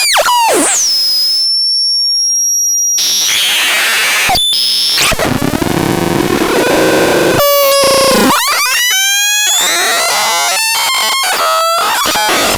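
Absurdon X1 Bax Box noise synthesizer playing harsh electronic noise with sweeping pitch glides and abrupt switches. A falling sweep settles into a steady high whistle for about a second and a half, then bursts of noise and fast rising and falling tones follow.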